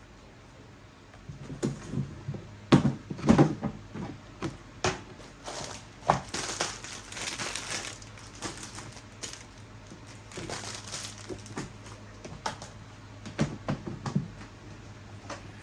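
Household handling sounds: scattered knocks and clicks, with a stretch of crinkling rustle near the middle.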